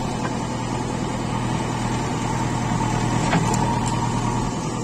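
Backhoe loader's diesel engine running steadily, a constant low hum, with a brief click about three and a half seconds in.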